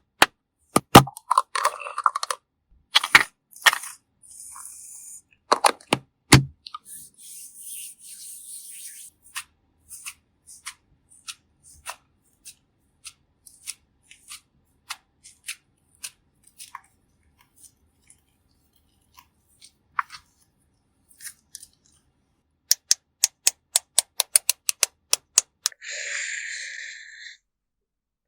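Makeup-application ASMR sounds on a bottle gourd: a series of sharp clicks and taps, with a quick run of them near the end, and a few short hissing strokes.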